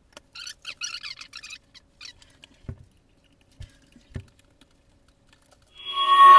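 An aluminium paper-plate die and its heater parts being handled: a quick run of light metal clicks and rattles, then three dull knocks as the die is set on the table and worked on. Background music comes in near the end, louder than the handling.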